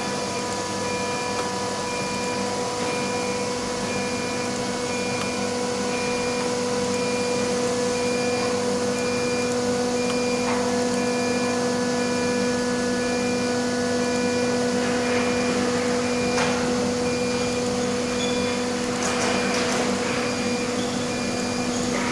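CNC router running with a steady pitched machine hum, plus a faint high tone that pulses on and off. A few faint knocks come in the second half.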